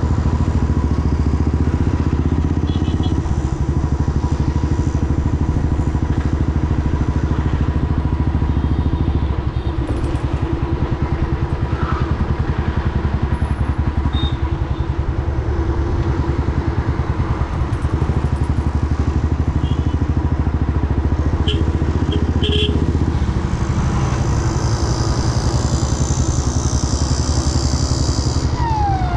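Royal Enfield Classic 350's single-cylinder engine running steadily, with even firing pulses. A siren starts to wail right at the end.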